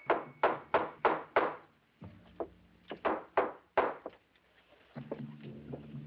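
Butt of a revolver used as a hammer, knocking a poster into a wooden frame on a brick wall. Six quick sharp knocks, about three a second, then a short pause and four more, after which only faint ticks remain.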